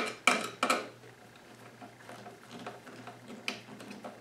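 Metal clicks and ticks of a hand screwdriver tightening the cover screws on a Chamberlain garage door opener's sheet-metal chassis: three sharp clicks in the first second, then faint, irregular ticking.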